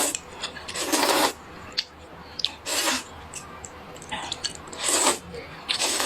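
Slurping rice noodles: about four short, noisy slurps spaced a second or two apart, with small mouth clicks between them.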